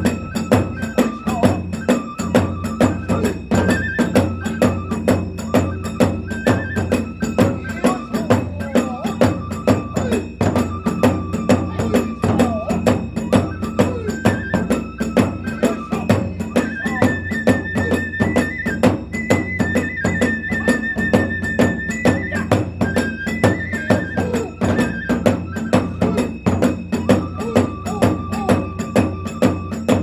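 Kagura festival music: a bamboo transverse flute plays a melody over a steady, quick beat of taiko drums and small hand cymbals.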